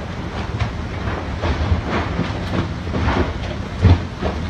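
Strong storm wind rushing and rumbling over the phone's microphone as the tornado passes across the water, with a low thump about four seconds in.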